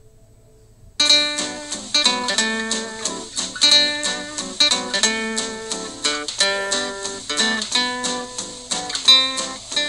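Background music: plucked guitar notes in a steady rhythm, starting suddenly about a second in after a brief lull.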